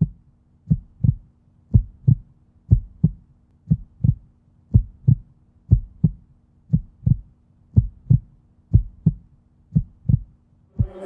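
Heartbeat sound effect: deep double thumps, lub-dub, about once a second.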